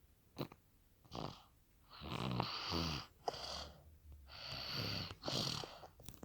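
A baby snoring: a short breath about a second in, then two long snores about two and four seconds in.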